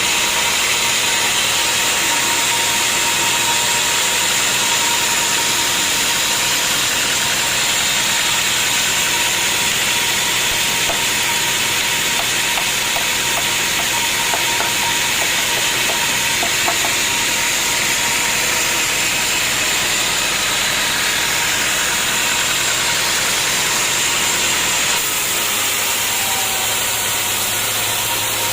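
Sawmill saw running steadily, a constant machine noise with a thin steady whine; the sound shifts slightly about 25 seconds in.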